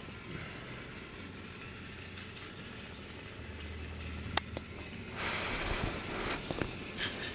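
Battery-powered Trackmaster toy locomotive running along plastic track with a small electric motor whirring. It gets louder and more rattly a little past halfway as it comes closer, with a sharp click just before that.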